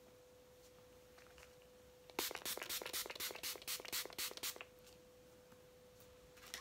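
Pump-action face mist bottle sprayed onto the face about a dozen times in quick succession, roughly four or five sharp hissing pumps a second for two and a half seconds, starting about two seconds in.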